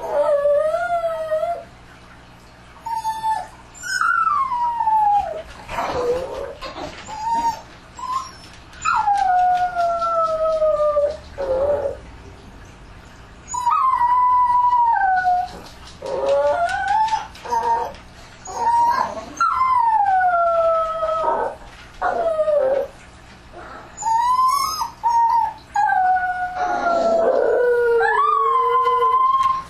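Dogs howling at night: a run of long howls, each sliding down in pitch, repeated every couple of seconds with brief pauses between them.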